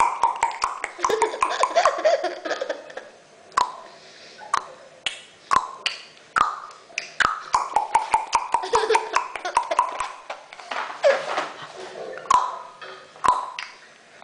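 Tongue clicks and clucks, irregular and often several a second, each a hollow pop, mixed with short babbling vocal sounds about two seconds in and again near the three-quarter mark.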